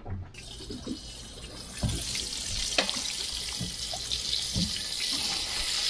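Battered mangrove snapper fillets sizzling as they fry in a pan, a steady hiss that comes in suddenly and grows louder, with a few light knocks.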